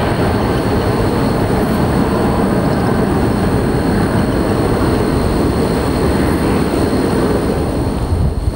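Airbus A380 airliner's four jet engines at takeoff thrust, a loud steady rumbling roar as it climbs away, with a rougher, crackling edge near the end.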